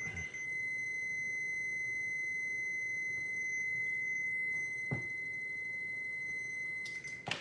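Fluke 87V multimeter's continuity beeper sounding one long, steady high beep while the test leads are held together, signalling a closed circuit; it cuts off suddenly near the end. A faint click about five seconds in.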